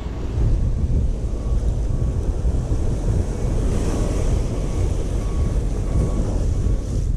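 Wind buffeting the microphone over the wash of breaking surf; the hiss of the surf swells about halfway through as a wave runs up the sand.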